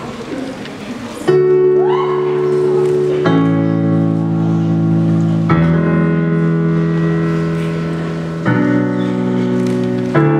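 Slow piano introduction: sustained chords beginning about a second in and changing every two to three seconds.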